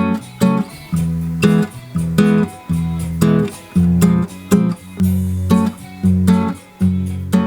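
Acoustic guitar strumming chords in a steady rhythm, about two strokes a second, each stroke sharp at the start and dying away before the next.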